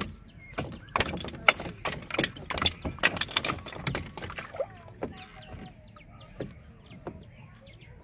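A freshly caught fish flapping on a wooden boat's plank deck, a rapid, irregular run of slaps and knocks on the boards for about four seconds. After that, birds chirping.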